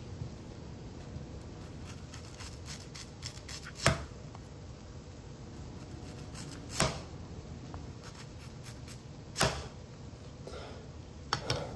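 Chef's knife slicing an onion on a cutting board: scattered light taps, and three sharp knocks of the blade on the board about three seconds apart.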